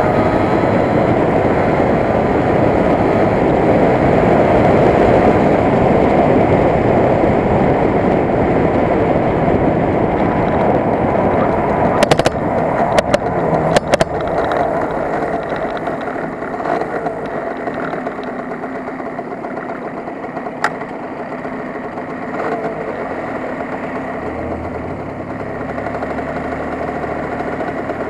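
Yamaha RD 80 LC two-stroke motorcycle riding at speed with wind rushing over the camera, then slowing down. A few sharp knocks come about halfway through, and near the end the engine settles to a steady idle as the bike stops in traffic.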